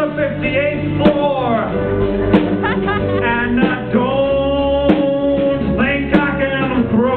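A band playing a song live: a steady low end and regular drum hits under melody lines that slide up and down in pitch.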